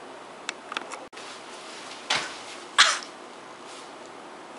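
A woman's two short, raspy shrieks close together, the second louder, after a few light clicks.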